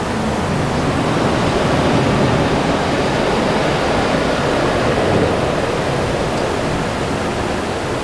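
A steady, loud rushing noise with no distinct events.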